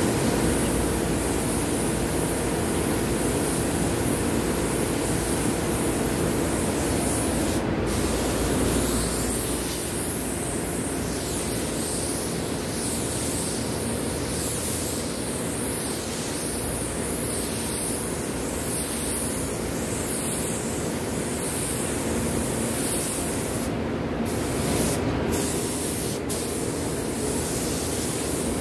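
Compressed-air spray guns hissing steadily as they spray dark paint onto furniture, with a steady low hum underneath. The hiss drops out briefly a few times.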